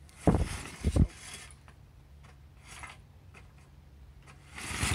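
John Deere lawnmower's recoil starter pulled twice in quick succession, with faint mechanical clicks after. The engine catches and starts running loudly near the end.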